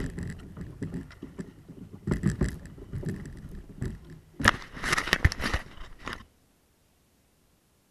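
Scraping and crackling as a kayak's hull pushes through thin skim ice. About four and a half seconds in comes a louder burst of knocking and rubbing as the action camera is handled against a jacket and life vest; it stops abruptly about six seconds in.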